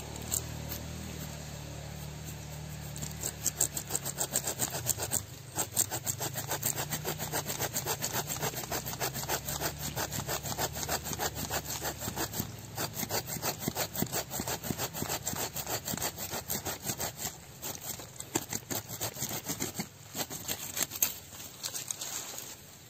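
Hand pruning saw with a curved, coarse-toothed blade cutting through the root of a serut tree in the soil, in quick, even back-and-forth strokes. The strokes start about three seconds in and run on until near the end.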